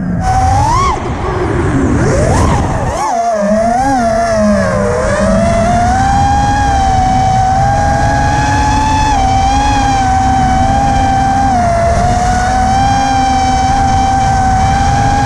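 FPV quadcopter's four brushless motors (T-Motor Blackbird 1950kv) with 5-inch props whining under throttle, the pitch swooping up and down for the first few seconds with a brief throttle chop about three seconds in, then holding a nearly steady pitch as the quad cruises.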